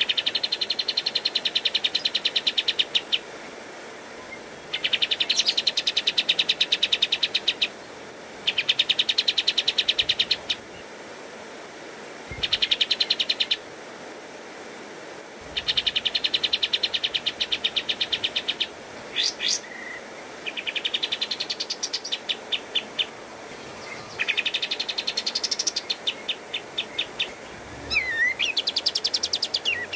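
Olive-winged bulbul (kapas tembak) singing its rapid-fire 'tembakan' song: about eight bursts of quick, evenly repeated notes, each a few seconds long, separated by short pauses. Several of the later bursts sweep upward in pitch.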